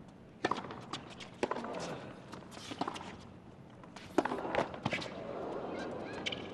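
Tennis rally on a hard court: racquet strikes on the ball as sharp pops about every second or so, the first about half a second in and the loudest just after four seconds, with the players' footsteps scuffing on the court between shots.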